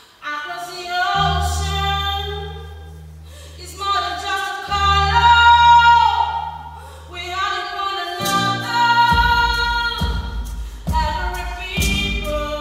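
Live ensemble music: a woman sings high, held notes over long, low double-bass notes, and a drum beat comes in about nine seconds in.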